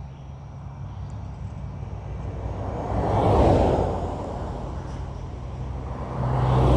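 Vehicles driving past on a road: a low engine hum with a swell of tyre and engine noise about three seconds in, and another vehicle approaching and growing louder near the end.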